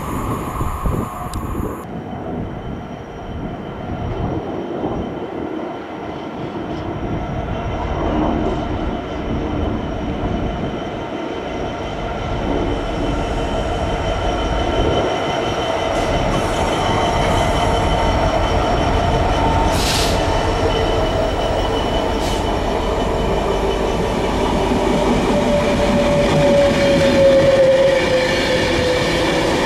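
A Class 66 diesel freight locomotive runs through with its wagons rumbling and clattering over the rails, and then a Class 390 Pendolino electric train passes. There are two sharp clicks about two-thirds of the way in, and a whine falls in pitch near the end as the train goes by.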